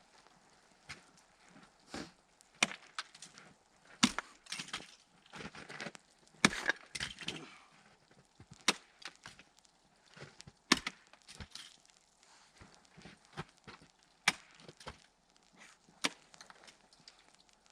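Icicles and ice being broken off a roof with a hammer: irregular sharp cracks and knocks, some followed by crunching and shattering as pieces break and fall.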